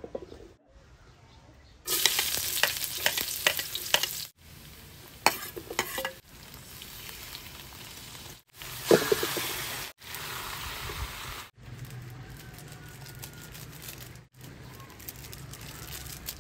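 Onion, garlic and pork belly sizzling in oil in a wok, with scattered crackles. The sizzle starts loud about two seconds in, then goes on quieter and breaks off abruptly several times.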